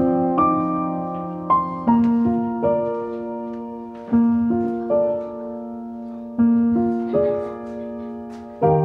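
Slow background piano music: soft chords struck one after another, each ringing and fading before the next.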